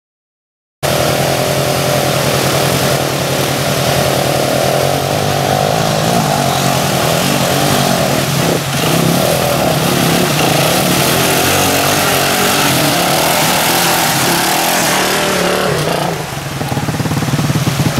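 An ATV engine running steadily under load as the quad fords a flooded, fast-running river, over the continuous rush of the water. The engine sound weakens a couple of seconds before the end.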